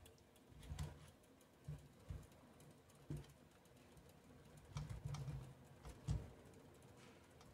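Thick squash purée being stirred in a metal pan with a wire utensil: faint, irregular soft thuds and a few sharper clicks as the utensil moves through the purée and touches the pan.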